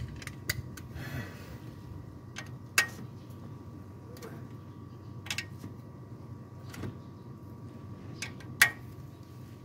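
A few sharp, isolated metallic clicks, roughly two seconds apart, from a socket wrench on a long extension working the bolts of a Toyota 2AZ-FE engine's balancer shaft assembly, over a steady low hum.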